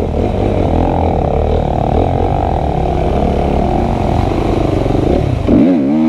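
Motorcycle engine running steadily, with quick up-and-down swings in pitch near the end as the throttle is worked.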